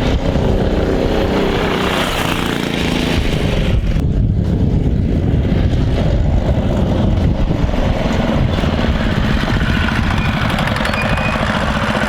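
Mini bike's Predator 212 single-cylinder four-stroke engine running under throttle as it is ridden. The revs rise and fall over the first few seconds, then hold fairly steady.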